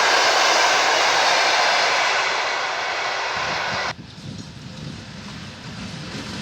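TEP70BS diesel passenger locomotive running loud and steady, its roar easing slightly before cutting off abruptly about four seconds in. A quieter, slowly growing low rumble follows: a VL80S electric locomotive with its train approaching.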